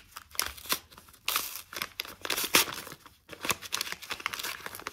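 Small paper envelope being unfolded and opened by gloved hands: irregular crinkling and tearing of paper in short bursts.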